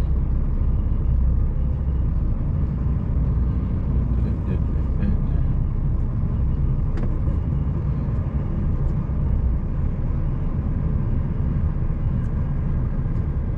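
HGV diesel engine running at low revs during a slow reverse manoeuvre, heard from inside the cab as a steady low rumble, with a few faint clicks.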